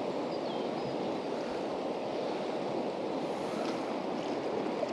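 River current rushing steadily.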